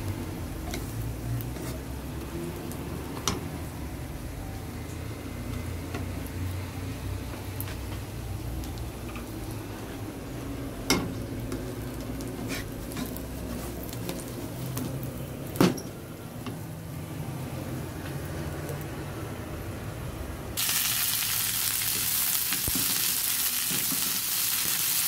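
Egg frying in oil in a pan and being stirred with a wooden spatula, with a few sharp clicks. About 20 seconds in, this changes abruptly to a loud, steady sizzle as green beans fry in hot oil.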